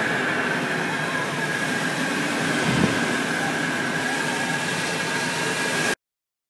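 Steady rush of airflow in the cockpit of a Glasflügel Mosquito 303 sailplane in flight, with a steady high tone over it and a brief low thump about three seconds in. It cuts off abruptly near the end.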